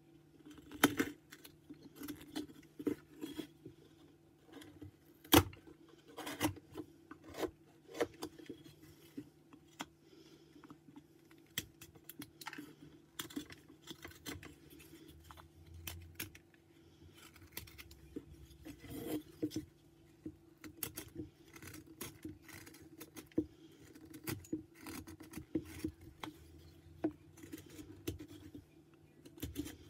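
Carving knife slicing and shaving white pine by hand: irregular crisp cuts and short scraping strokes, with a couple of sharper clicks near the start, over a faint steady hum.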